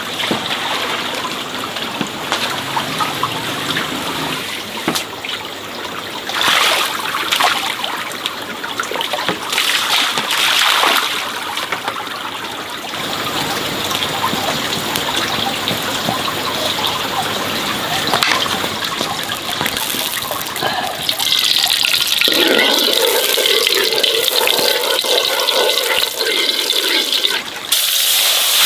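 Water pouring and splashing irregularly, giving way about three quarters of the way through to a steadier, denser noise that becomes a broad, loud hiss near the end.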